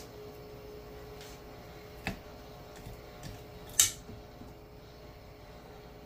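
Metal kitchen tongs clinking against a small saucepan as a fried chicken wing is dunked into sauce: a light tap about two seconds in and a sharper clink nearly four seconds in, over a faint steady hum.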